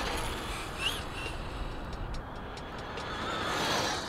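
Whine of a Traxxas Rustler VXL's brushless motor and drivetrain on a top-speed pass, faint against open-air background noise, rising in pitch and loudness near the end as the car speeds up.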